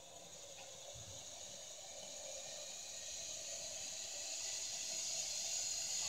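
Zip line trolley running along the cable with a steady whirring hiss that grows louder as the rider approaches.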